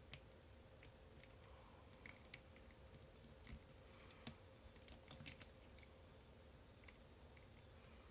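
Faint, irregular metal clicks and ticks of a pick and tension tool working the slider-sidebar core of an On Guard bicycle U-lock, with a small flurry of clicks about five seconds in.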